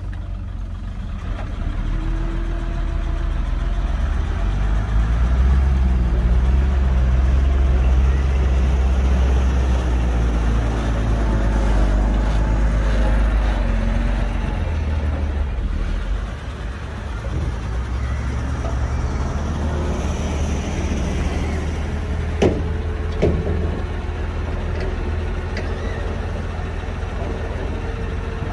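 Heavy diesel engine of a Hyundai dump truck running hard. It gets louder over the first few seconds and holds there, then eases off fairly suddenly about sixteen seconds in and runs on steadily. Two sharp knocks come a little less than a second apart near the end.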